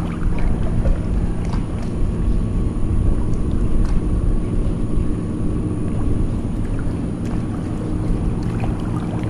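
Steady low rumble and hum of traffic crossing the highway bridge overhead, heard from beneath the deck.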